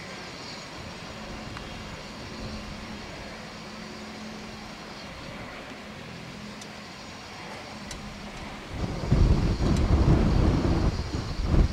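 Boeing 747's jet engines running at low power as it taxis, a steady low hum. About nine seconds in, wind gusts hit the microphone with loud, uneven rumbling that swamps the engine sound.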